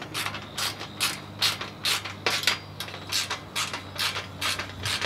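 Socket ratchet wrench clicking in short uneven runs, about two to three clicks a second, as a bolt clamping an aluminium cross-brace rail to a mount leg is tightened down a little.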